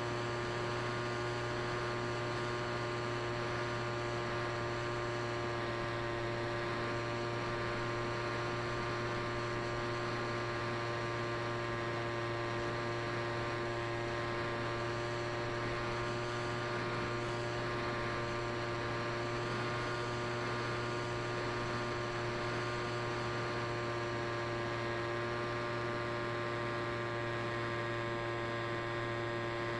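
Steady electrical hum with a stack of higher whining tones above it, holding one pitch the whole time.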